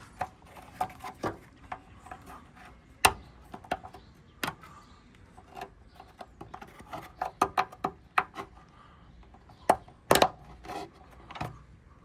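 Irregular clicks, taps and knocks from hands handling and refitting parts inside a van's liftgate, with sharp knocks about three seconds in and around ten seconds.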